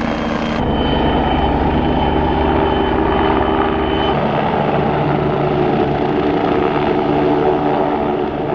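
Helicopter flying close by, its rotor beat loud and steady, with the pitch of its sound shifting about half a second in and again around four seconds in.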